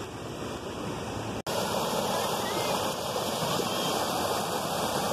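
Shallow river water rushing steadily over rocks and through a small rapid. The sound drops out for an instant about a second and a half in and comes back louder.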